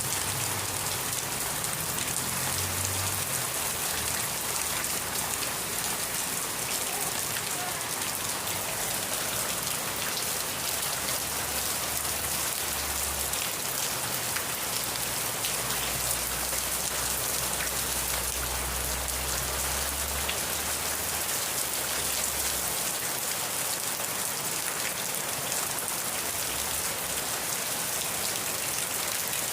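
Steady rain falling: an even hiss of countless drops that does not let up.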